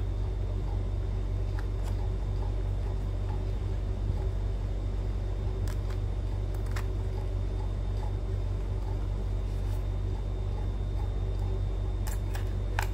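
A sealed charger box being opened by hand: a few faint clicks of the seal and packaging giving way, a small cluster of them near the end, over a steady low hum.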